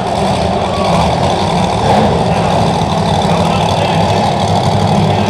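Monster truck engine idling steadily.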